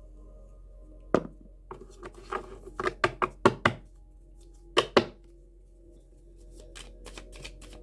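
Tarot cards knocked and laid down on a tabletop: a string of sharp taps between about one and five seconds in, then quicker, lighter ticks near the end. Faint background music runs underneath.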